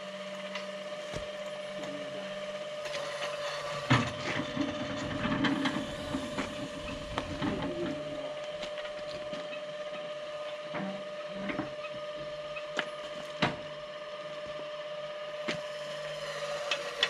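Scattered metal knocks and scraping from handling an electric starting cart and its pulley at the front of a Zetor 25 tractor, over a steady faint hum. The tractor's engine is not running.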